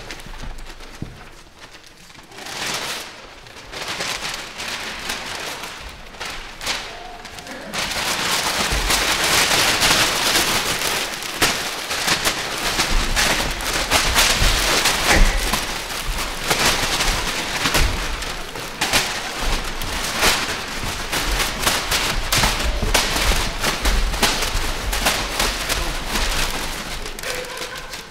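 Four performers crumpling and shaking large sheets of paper, a crackling rustle made of many small crackles. It starts sparse and patchy, then about eight seconds in thickens into a dense, louder crackle that carries on until near the end.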